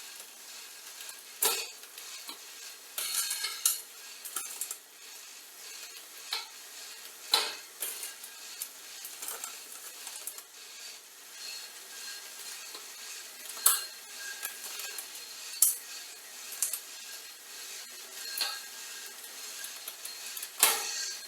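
Hand tools and metal bicycle parts clinking, knocking and scraping, with single sharp knocks every few seconds and a short run of rattling scrapes a few seconds in.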